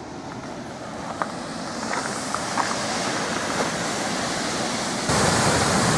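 Steady rushing of water, growing louder, then jumping up sharply about five seconds in: the dam's release pouring from the outlet at the foot of Cow Green Dam.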